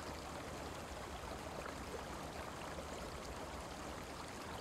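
Steady, faint wash of flowing river current.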